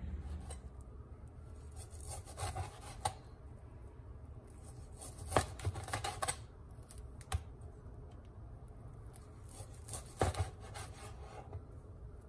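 Large kitchen knife slicing raw pork belly on a plastic cutting board: a rubbing, sawing sound as the blade works through the meat, with irregular sharp taps where it strikes the board.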